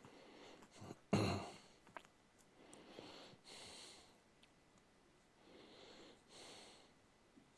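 A person breathing slowly and close to the microphone, a soft breath in and out every few seconds, with one louder breath about a second in and a few faint clicks.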